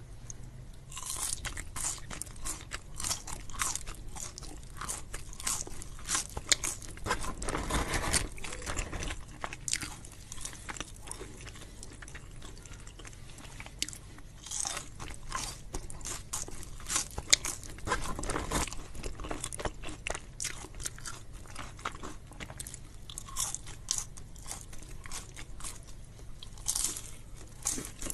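Close-miked chewing and crunching of crispy fries, dense crackling bites starting about a second in, with louder crunchy stretches partway through.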